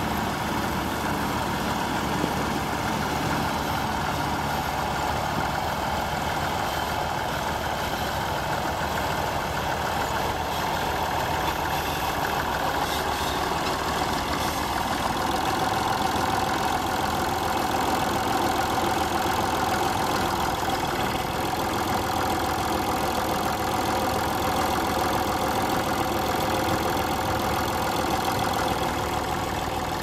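Vintage Massey Ferguson tractor engine running steadily, heard close by. About halfway through it gets slightly louder and a steady mid-pitched hum stands out over the engine noise.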